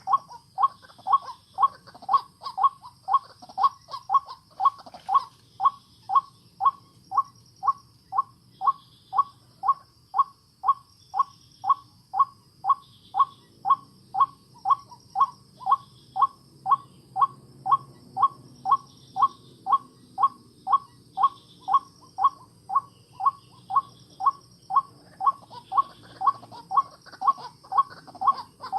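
White-breasted waterhen (ruak-ruak) calls, short notes repeated in an even, unbroken rhythm of about two a second.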